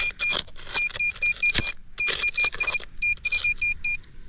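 Handheld metal-detecting pinpointer beeping in quick runs of short, high-pitched pulses, about five a second, as it is swept over metal in the soil. Rustling and scraping of digging runs underneath.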